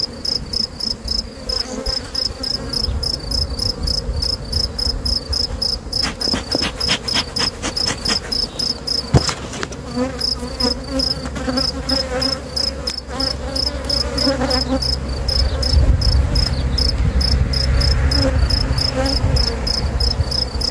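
Honeybees buzzing around an open hive while its wooden frames are handled, with a run of clicks about six seconds in and a sharp knock about nine seconds in. A cricket chirps steadily at a high pitch, evenly repeated.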